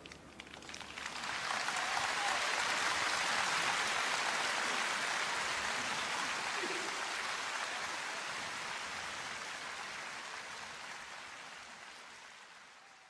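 Steady hiss of rain that swells in over the first second or two and then slowly fades away.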